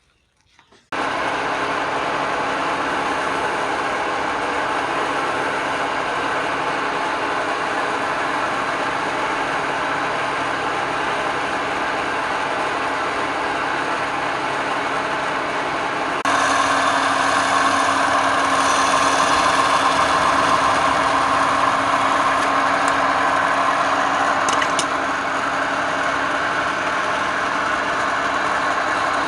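Wood lathe running steadily. The sound starts abruptly about a second in and steps up suddenly in level a little past halfway.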